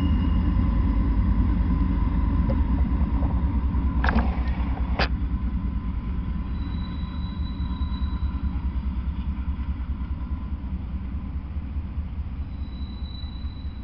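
Diesel-electric freight locomotives passing with a deep, pulsing engine rumble that slowly fades as the engines go by and the freight cars follow. Two sharp clicks come about four and five seconds in.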